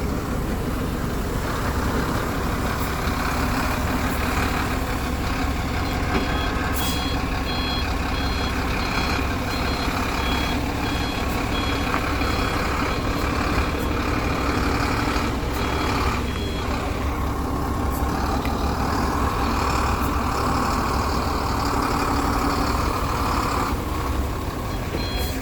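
Heavy construction machinery running with a steady low engine rumble. A vehicle's reversing alarm beeps in a regular series through the middle stretch and starts again near the end.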